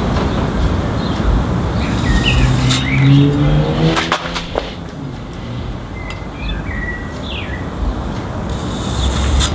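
A motor vehicle passing, its engine note rising for a couple of seconds. A few short bird chirps come over a steady background noise, with two sharp clicks about four seconds in.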